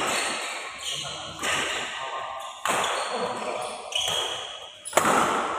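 Badminton rally: racket strings striking the shuttlecock four times, roughly once every second or so, each hit sharp and followed by a long echo in a large hall.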